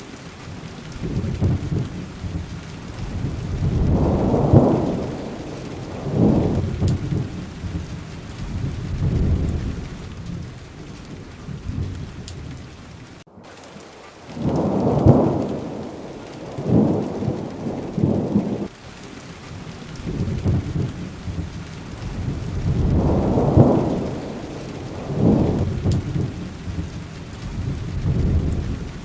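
Steady heavy rain with rolls of thunder rumbling low every few seconds, and a momentary cut-out of all sound about halfway through.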